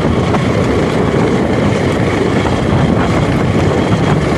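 Motorcycle riding over a gravel dirt road: steady engine and road noise, with wind buffeting the microphone.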